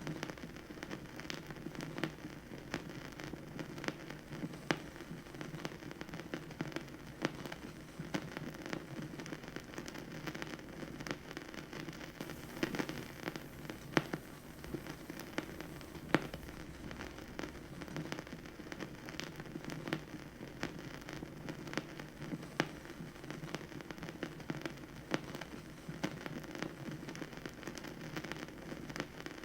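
Vinyl record surface noise on a record player: a steady bed of fine crackle scattered with frequent sharp pops, over a low, steady hum.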